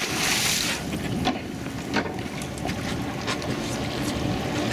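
A tarpon thrashing and splashing at the boat's side in the first second, then water slapping and trickling as it is held alongside. Beneath it a boat engine idles steadily in gear.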